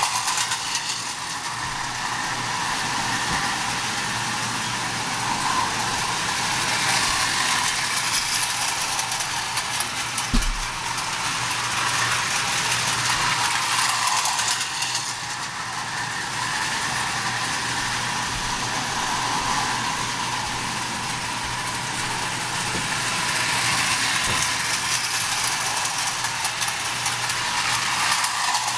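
Marx 595 toy steam locomotive and its short train of 6-inch cars running on three-rail tubular metal track: a continuous clattering rattle of wheels over the rails with a steady motor hum, swelling and fading as the train passes close and moves away.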